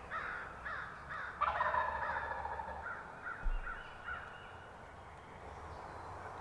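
Wild turkey gobbler gobbling once from its roost tree, a loud rattling call about a second and a half in, with crows cawing several times before and after it.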